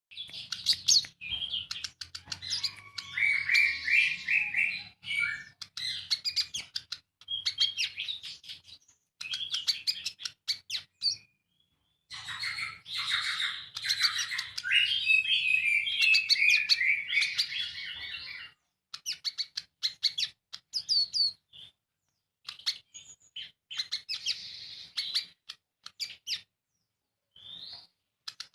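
Sunbirds singing: bursts of rapid, high chirps and trills, broken by several short silences.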